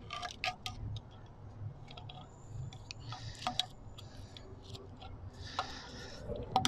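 Scattered light metal clicks and short rustling scrapes from gloved hands working hose clamp pliers on a spring hose clamp.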